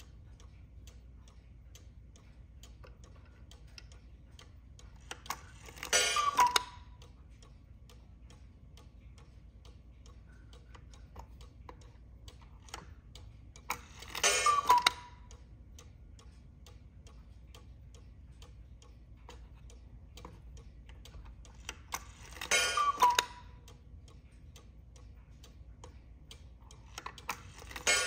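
Eight-day cuckoo clock ticking steadily, with its two-note cuckoo call from the bellows and pipes sounding about every eight seconds, three times. Another call starts near the end as the cuckoo bird comes out of its door.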